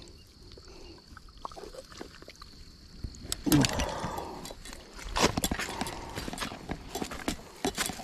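A freshly landed catfish flopping on a grassy, muddy bank: a run of slaps, thuds and rustles starting about three seconds in, with a short low falling grunt near the start of the flopping.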